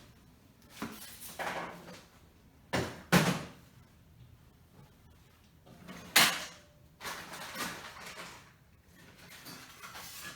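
Clunks, clicks and scraping from a tool being worked inside the stuck-shut door of a 2014 Cadillac Escalade whose broken interior handle mechanism will not release the latch. Two knocks come close together about three seconds in and the loudest about six seconds in, with scraping between.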